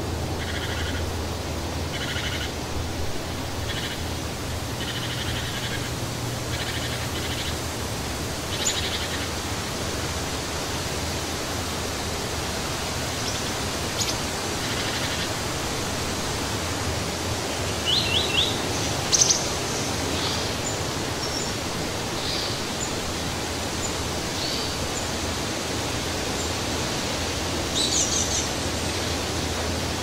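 Steady rushing of wind through forest trees, with songbirds chirping over it: short repeated calls through the first several seconds, then scattered chirps, the loudest a quick run a little past the middle and another near the end.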